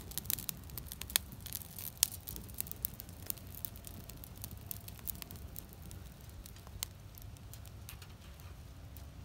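Dry leaves burning in a perforated tin-can stove, crackling and popping. The pops come thick at first and thin out as the flames die down.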